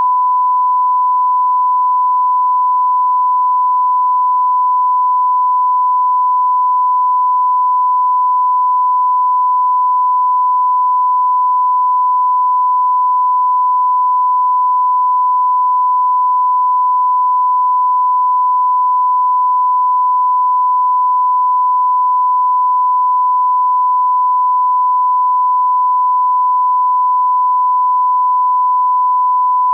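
A steady 1 kHz sine tone, held at one pitch and one level without a break: a test or line-up tone of the kind placed at the head of a broadcast tape.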